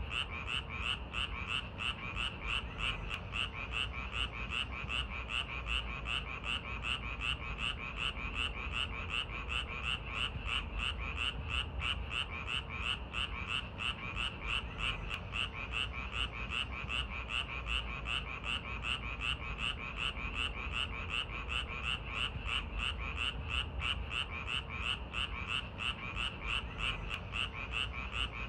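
Frogs calling in a summer night chorus: an unbroken, even rhythm of croaking pulses, about three a second.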